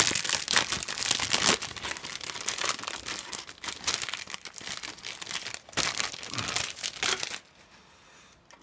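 Thin clear plastic bag crinkling and rustling as hands pull plastic model-kit runners out of it; the crinkling stops about a second before the end.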